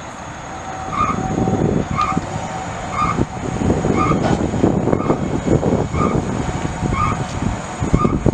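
Heavy diesel fire truck engine running with a low, uneven rumble, and a short electronic warning beep repeating about once a second.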